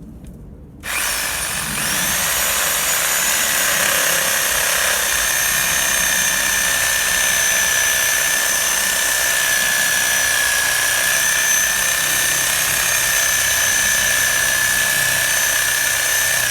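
Corded Titan reciprocating saw with a 240 mm DeWalt HCS wood blade starting up about a second in and then running steadily, cutting into a bay tree stump. Its constant high whine sits over the rasp of the blade in the wood.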